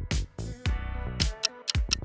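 Background music with a steady beat of drum hits over a bass line.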